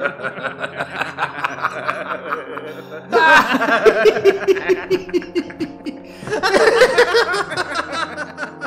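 Two men laughing in rapid pulses, with two louder bursts about three and six and a half seconds in that fall in pitch, over low held notes of background music.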